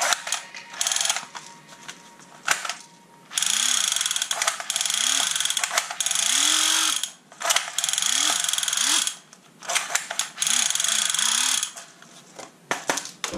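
A toy gun firing in long automatic bursts, four of them, each lasting a second or two and separated by short gaps. Sharp clicks of the gun being handled sound before and between the bursts.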